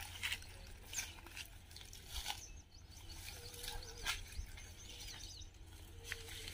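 Footsteps and scattered crackles and snaps of feet and body pushing through dry leaves and brush, about one every second, with a few faint bird chirps around the middle.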